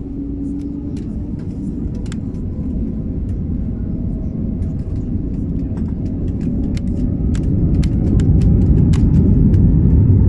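Airbus A321neo jet engines and rolling airframe heard from the passenger cabin as the airliner accelerates down the runway at the start of its takeoff roll. The low rumble grows steadily louder as thrust and speed build, with scattered sharp clicks and rattles throughout.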